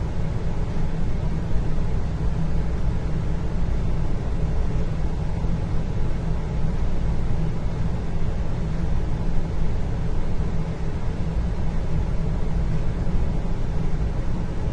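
Steady indoor ambience: a continuous low rumble with a faint hum, unchanging throughout.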